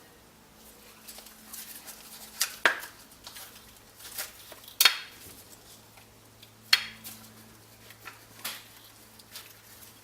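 Metal parts of a Lucas dynamo clinking and knocking as it is taken apart by hand, a string of sharp clinks with short ringing, the loudest about five seconds in. A faint steady low hum runs underneath.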